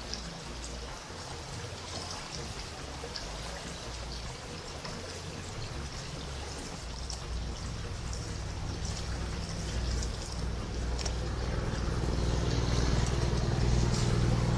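Steady rush of running stream water, with a low rumble that grows louder in the second half and a few faint ticks from hands working seasoning into a raw chicken in a steel bowl.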